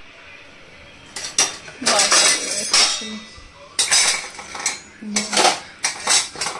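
Metal utensils clattering and scraping against a cooking pot or pan, in a string of short, irregular bursts starting about a second in.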